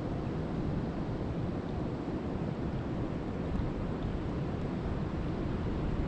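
Steady rain falling on a lake: an even, deep rushing noise that holds level throughout.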